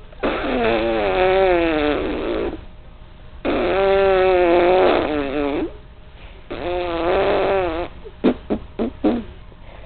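Someone making weird, warbling vocal noises: three long wobbling calls, then a few short sharp pops near the end.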